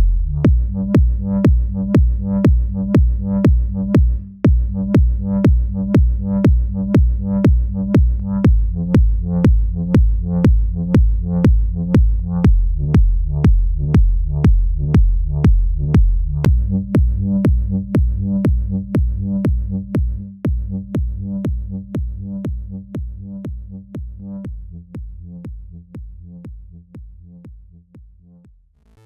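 Electronic music with a steady kick-drum beat and heavy bass. It briefly drops out about four seconds in, then fades out gradually over the last ten seconds or so.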